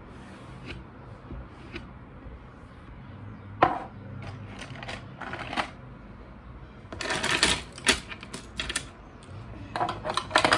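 Pens and markers clicking and clattering against each other and a plastic pencil cup as it is handled: a sharp knock about a third of the way in, then scattered clicks, and a dense rattle in the second half and again near the end.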